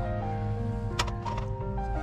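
Background music of held, shifting notes over a steady bass line, with a sharp click about a second in followed by a brief scraping noise.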